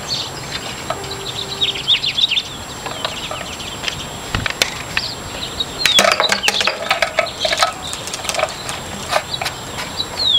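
Small birds chirping in quick runs of short falling notes, with a cluster of sharp knocks and clatter about six seconds in.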